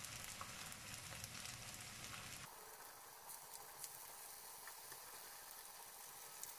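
Ground-meat köfte patties frying in hot vegetable oil in a grill pan: a faint, even sizzle with fine crackles. It turns thinner and quieter suddenly about two and a half seconds in.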